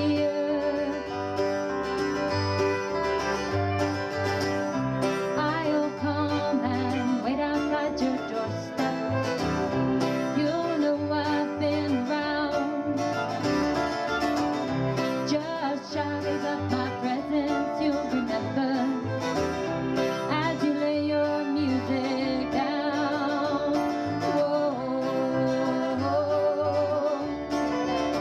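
Bluegrass-style music: picked guitar and banjo over a steady bass line.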